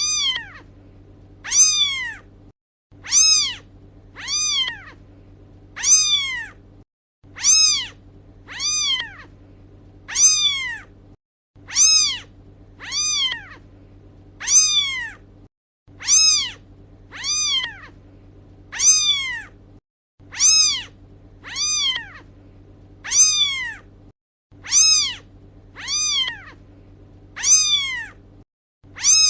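Kitten meowing over and over, high-pitched calls that rise and fall in pitch, about one a second, with a faint low hum behind.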